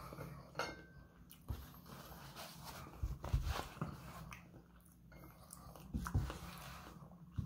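Close-up chewing and mouth sounds of raw salmon sashimi being eaten. A few knocks stand out, a cluster about three seconds in and another about six seconds in.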